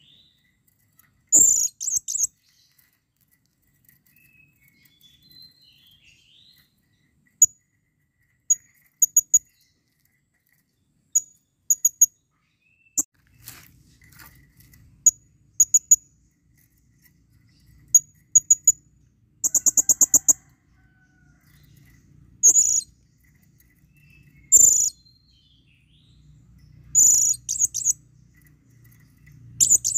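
Blue-crowned hanging parrot (serindit) giving sharp, high-pitched chirps, singly and in quick runs of two or three. A fast chattering rattle comes about two-thirds of the way through, and longer, louder shrill calls come near the end. These are a male's breeding-condition calls to a female.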